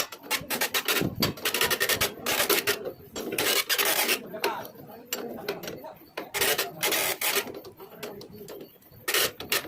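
Repeated metal-on-metal scraping strokes, irregular in pace, typical of hand-filing a motorcycle drive chain's link rivet to open the chain.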